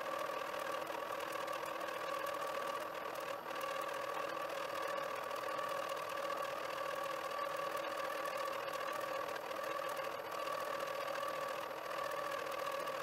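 Milling machine running under cut, with a steady whine, as a lathe insert boring bar, used in place of a carbide end mill, cuts a flat slot along a metal cylinder held in the vise.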